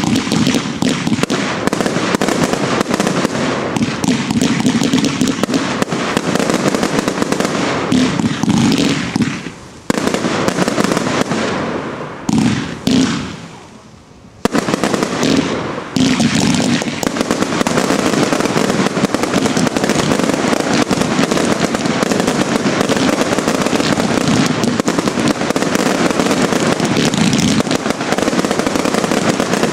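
Fireworks display finale firing a dense, continuous barrage of bangs and crackle from launches and bursting shells, with brief lulls about ten and thirteen seconds in before the barrage resumes.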